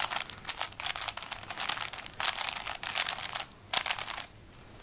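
A 3x3 Rubik's cube being scrambled by hand: rapid turns of its plastic layers making quick runs of clicks and rattles, which stop about four seconds in.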